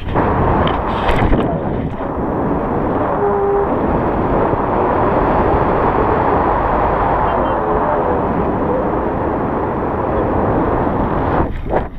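Wind rushing over the microphone of an action camera held out on a pole in flight under a paraglider: a loud, steady rumbling noise with no tone to it.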